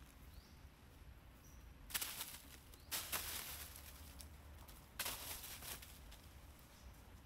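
Three short bursts of rustling from leaves and branches as monkeys clamber and drop through the tree and onto dry leaf litter. The bursts come about two, three and five seconds in, the middle one the longest.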